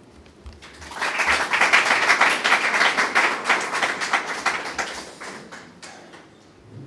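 Audience applauding, starting about a second in and fading out over the last couple of seconds.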